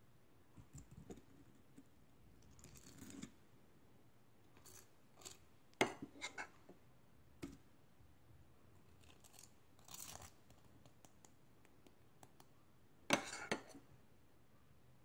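Scattered light handling sounds of clicks and scrapes, with sharper knocks about six seconds in and again about thirteen seconds in.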